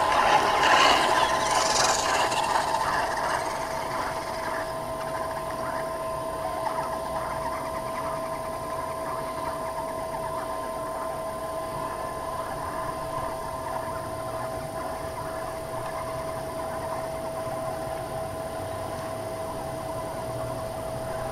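Radio-controlled toy truck driving over gravel, its motor giving a steady whine under the crunch of its tyres. It is loudest in the first couple of seconds, then settles lower and steady as it moves away.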